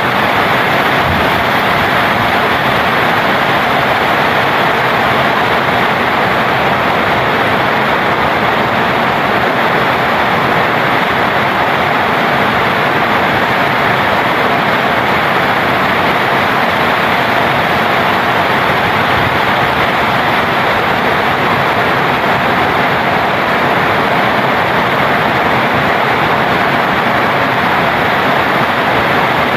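Heavy tropical rain pouring steadily onto palm fronds and dense foliage, an even, unbroken hiss.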